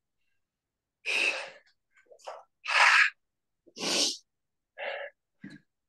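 A woman's short, forceful breaths with exertion during a plank-and-arabesque exercise, several sharp puffs of air about one a second.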